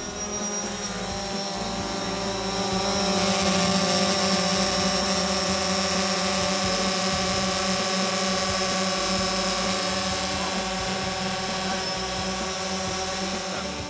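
Quadcopter drone hovering with a package slung beneath it, its propellers giving a steady, pitched buzz. It grows louder about three seconds in as the drone comes closer.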